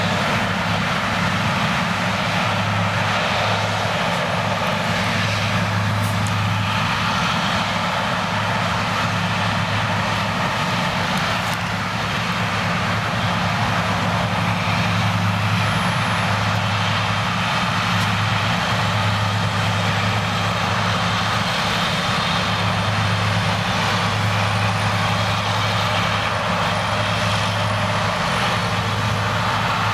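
A steady engine drone with a constant low hum, as of a vehicle running at an even speed.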